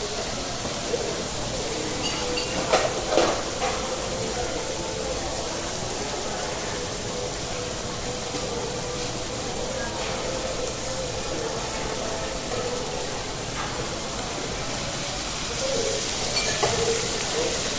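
Food sizzling on a hot steel teppanyaki griddle, a steady hiss, with a few sharp clicks about three seconds in and again near the end.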